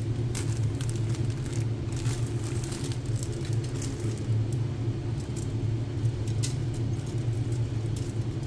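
Clear plastic bag crinkling in short crackles as a plastic model-kit sprue is pulled out and handled, over a steady low hum.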